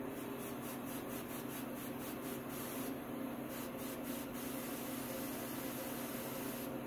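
Compressed air hissing steadily into a freshly welded oil pump pickup tube filled with soapy water, a leak test of the weld for pinholes.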